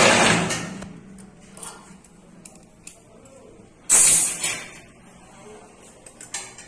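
Rebar ring making machine at work: two loud bursts of rushing, hissing noise about four seconds apart, each fading away over about a second, with light clicks and taps in between.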